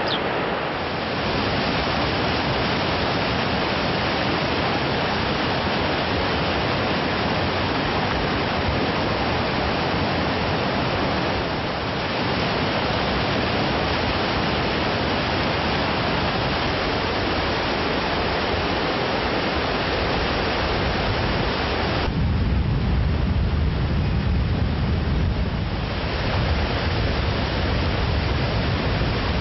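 Steady rush of white water cascading over rocks, a constant hiss. About 22 seconds in it turns deeper for a few seconds, with less hiss and more low rumble.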